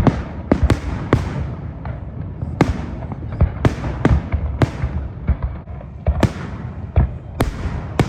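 Fireworks display: aerial shells bursting in quick, irregular succession, about two sharp bangs a second over a continuous low rumble.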